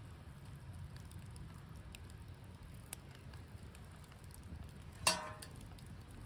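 Wood bonfire crackling with scattered faint pops over a low steady rumble, and one louder sharp knock about five seconds in.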